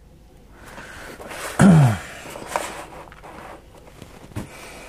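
A cardboard-and-plastic action-figure box being handled and turned around on a desk: soft rustling with a couple of light knocks, and about a second and a half in one short sound sliding down in pitch.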